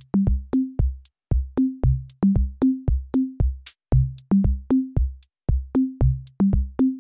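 Electronic music: a drum-machine beat of short, pitched drum hits, about four a second, stepping between a few low notes.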